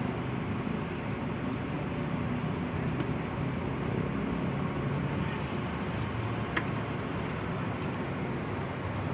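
A vehicle engine running steadily, a continuous low rumble with hiss, and a faint click about six and a half seconds in.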